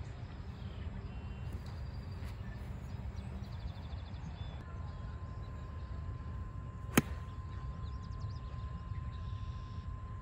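A sand wedge strikes a golf ball on a full approach shot: one sharp, crisp click about seven seconds in, over a steady low rumble of wind and distant background noise.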